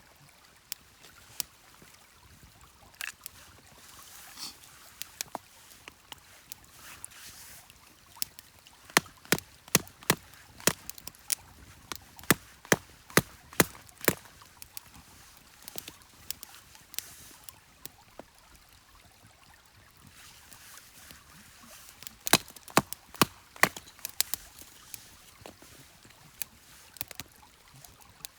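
Small wood fire crackling: irregular sharp pops over a faint hiss, coming thickest through the middle and again near the end.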